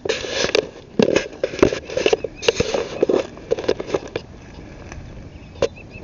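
Hurried footsteps, about two a second, scuffing and crunching on the ground; they stop about four seconds in, and a single knock follows near the end.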